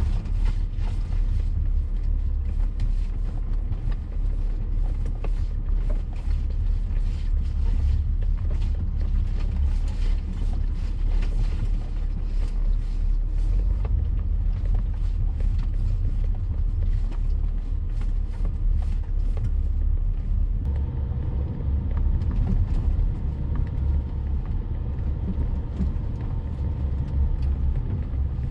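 Diesel BMW X5 (E70) driving over a rough off-road trail: a steady low rumble with frequent knocks and creaks from the bumps. About two-thirds of the way through, a steady hum joins in.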